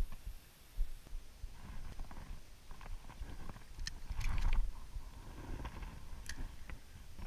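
Low rumbling handling noise on a GoPro action camera's microphone, with a few sharp clicks around the middle as a spinning reel is handled for a cast.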